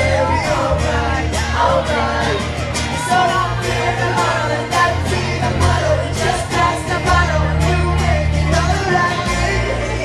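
Live pop band playing: singers over electric guitar, drums and a low bass line that changes note every second or two.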